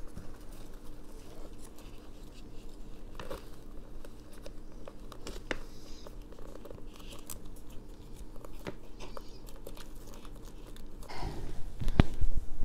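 Hands scooping and pressing potting soil into a pot around a moss pole: light rustling and crunching with scattered small clicks, and louder rubbing and knocks near the end. A faint steady hum runs underneath.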